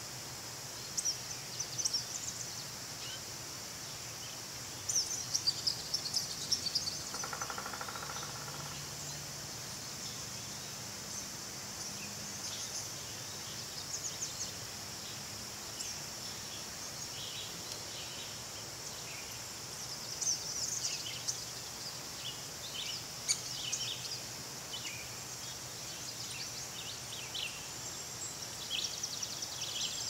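A steady, high-pitched chorus of insects, with scattered short chirps and calls of small birds coming and going over it, busiest about five to seven seconds in and again in the last third. A brief lower, pulsing call stands out about seven seconds in.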